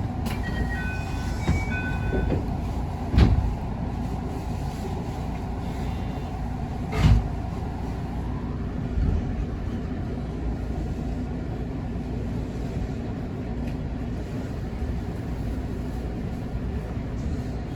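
JR West 221 series electric train running at speed, a steady rumble of wheels and running gear heard from inside the car. Two louder knocks from the track come about three and seven seconds in, and a brief run of stepped electronic beeps sounds in the first two seconds.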